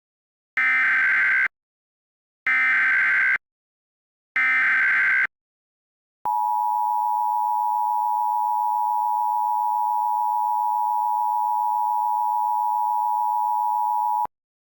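Emergency Alert System SAME header: three one-second bursts of digital data tones, about a second apart. Then the NOAA Weather Radio 1050 Hz warning alarm tone, one steady beep held for about eight seconds before cutting off, which marks the start of an emergency alert.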